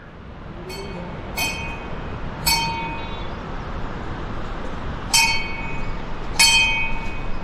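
A small metal bell struck five times at uneven intervals, each strike ringing clearly for a moment before dying away.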